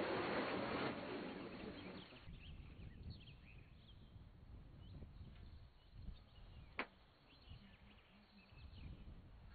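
Rustling noise for about the first two seconds, then quiet outdoor ambience with faint bird chirps and a single sharp click about seven seconds in.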